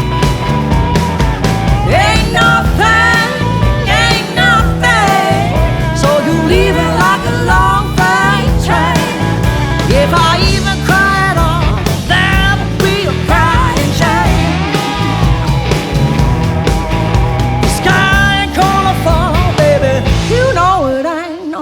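Country-rock band playing, with a steady low beat and bass under a lead melody line that bends and wavers. The music thins out briefly near the end.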